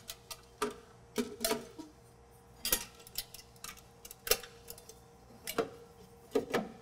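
A trim ring being fitted into a recessed wall cabinet: a handful of sharp clicks and light knocks, irregularly spaced, as the frame is pressed and seated into the opening.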